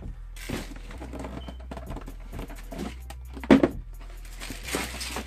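Rustling and handling noise as sneakers and their boxes are moved about on closet shelves, with a sharp knock about three and a half seconds in and a further burst of rustling near the end.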